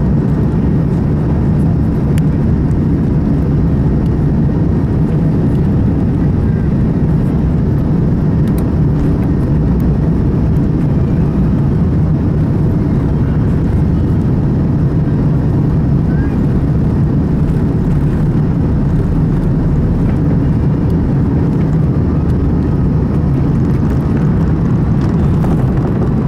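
Airbus A330-200's jet engines at takeoff power and runway rumble, heard from inside the cabin during the takeoff roll: a loud, steady, deep roar.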